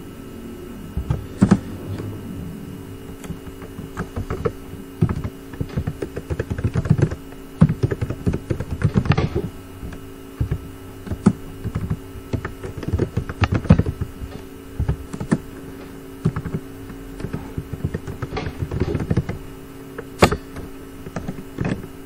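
Computer keyboard typing in irregular bursts of keystrokes over a steady low hum.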